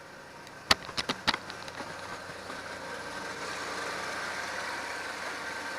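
2002 Toyota 4Runner's engine running steadily just after a transmission replacement, its sound building a little and then holding. A few sharp clicks come about a second in.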